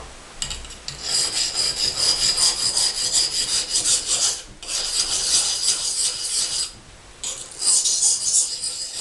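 A pocket knife blade rasping in quick strokes across a sharpening stone, putting an edge back on the knife, with two short breaks.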